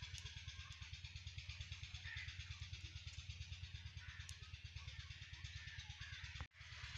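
Faint outdoor background with a low, even thudding at about eight beats a second, broken by a sudden cut near the end.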